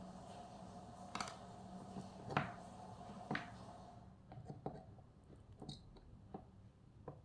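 Light clicks and taps of hand-soldering work, the soldering iron and parts knocking against the pins and board. Three sharper clicks come in the first half, then fainter ticks. A faint steady hum drops out about four seconds in.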